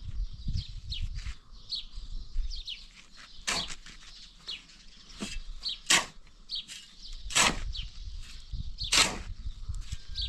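Sharp heavy strikes, one about every one and a half seconds, over small birds chirping repeatedly in short high falling notes.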